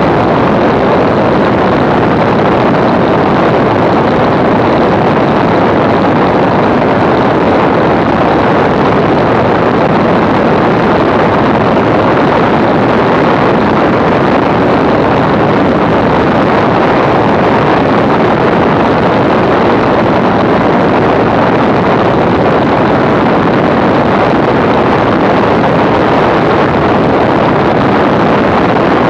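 Walter Minor inverted inline six-cylinder aero engine of a Zlin Z-326 Trener Master running steadily in cruise, with its propeller, heard through heavy wind noise on the microphone.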